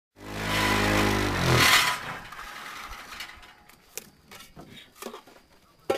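Vibrating table of a concrete roofing-tile machine running with a steady hum, which drops in pitch and stops about two seconds in. A few light clicks and knocks follow.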